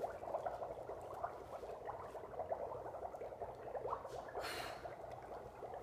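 Dry ice bubbling in warm water under a soap-film dome: a steady, crackling fizz of many fine pops. A brief breathy hiss about four and a half seconds in.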